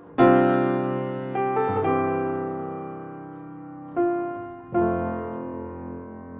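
Background piano music: slow chords struck a few times, each left to ring and fade.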